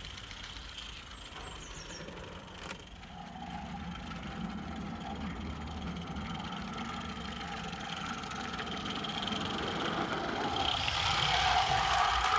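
IP Engineering Jane, a small 16mm-scale live-steam locomotive, running along garden track with a short train of wagons; its running sound grows louder near the end as it passes close by.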